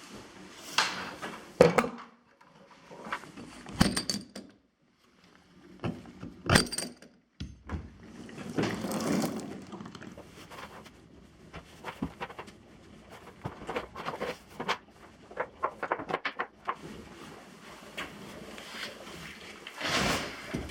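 Handling sounds from farm chores: a string of separate knocks, thuds and clicks with short stretches of rustling and scraping, and a louder rush of noise near the end.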